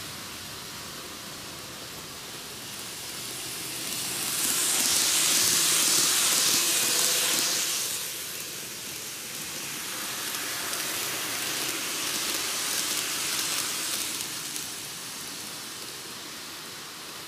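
N-gauge model trains running on canted model track: a rolling hiss of wheels on rail and small motors that swells up about four seconds in, is loudest for a few seconds, then swells again more softly as a train passes.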